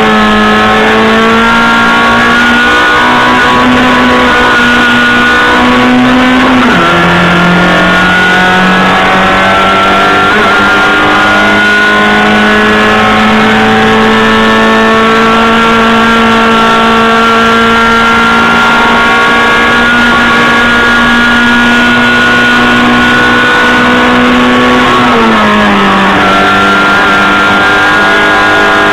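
Race car engine heard from inside the caged cockpit, running hard at high revs under load with a nearly steady pitch. The pitch drops sharply twice, about seven seconds in and again near the end, then climbs or holds again.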